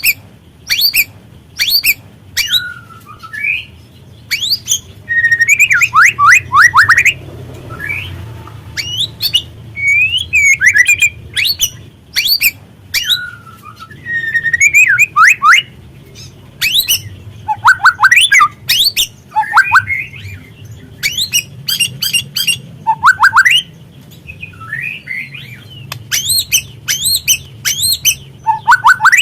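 Juvenile white-rumped shama calling fast and busily: sharp clicking chips and quick, falling whistled notes come again and again in short bursts with brief gaps. This is the excited chatter used as a lure to get other shamas to sing.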